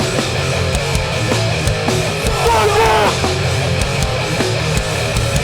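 Live hardcore punk band playing loud and fast: electric guitars, bass and drums.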